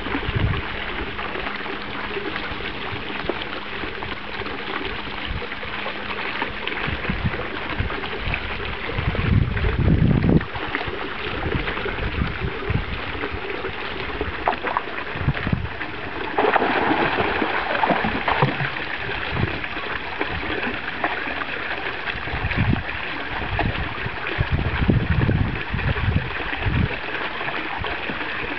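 Small garden-pond fountain splashing steadily, with a puppy wading and splashing through the shallow water after a floating ball. A few low rumbles come about a third of the way in and again near the end.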